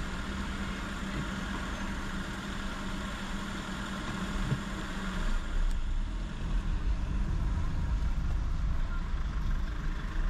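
Car running with engine and road noise. A steady hum stops a little past halfway, and from then on the low rumble is louder.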